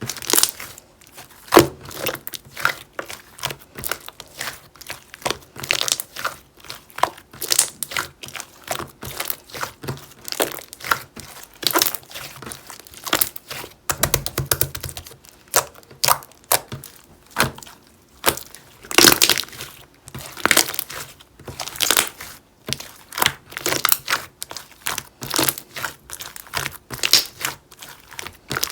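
Slime being squished, pressed and stretched by hand, giving a dense, irregular run of sticky crackles and little pops.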